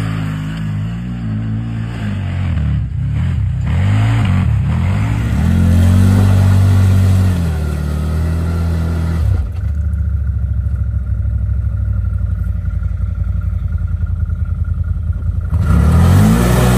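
CFMoto side-by-side's engine revving and running, rising and falling in pitch over the first few seconds. From about ten seconds in it settles to a steady low running with a fast pulse, then revs up again near the end.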